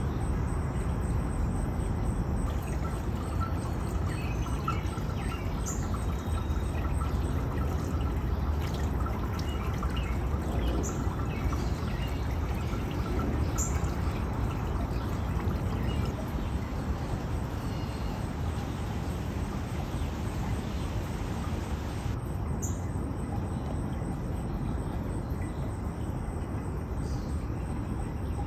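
Steady running water, a pouring and trickling rush, with scattered short, high bird chirps over it.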